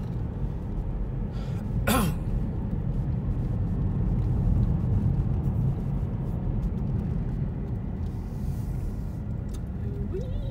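Steady low rumble of a car's tyres and road noise heard inside the cabin while driving downhill on a paved mountain road. A short, sharp sound cuts in about two seconds in, and a voice starts near the end.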